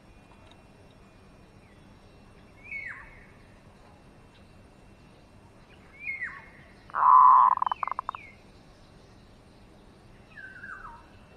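A caged zebra dove calling: a short falling note about three seconds in and another about six seconds in, run straight into a loud, rapid stuttering coo lasting about a second, then one more falling note near the end.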